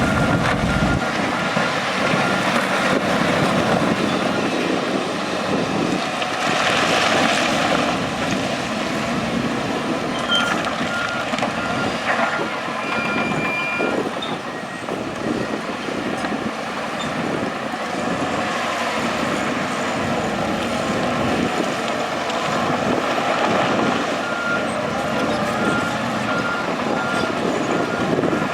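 Heavy diesel earthmoving machinery (dump trucks, wheel loader, bulldozer) running under work, with a reversing alarm beeping steadily at the start and again over the last few seconds.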